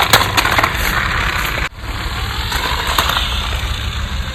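Radio-controlled off-road toy car driving, its motor and wheels making a steady noisy running sound with scattered clicks in the first second. The sound breaks off abruptly about one and a half seconds in and resumes at once.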